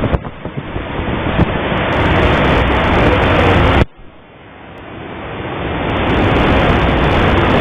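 Heavy wind buffeting the microphone, a loud, dense rush with a few sharp knocks in the first second or so. About four seconds in it drops off suddenly, then builds back up slowly.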